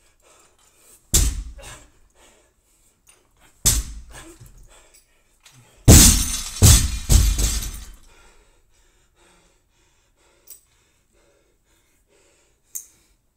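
A loaded barbell with bumper plates dropped from overhead onto a gym floor three times, about two and a half seconds apart. The last drop is the loudest, with the bar bouncing and rattling several times.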